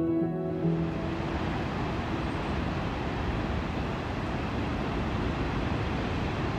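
Ocean surf breaking and washing against the foot of a rocky sea cliff, a steady rushing noise. Background music fades out within the first second.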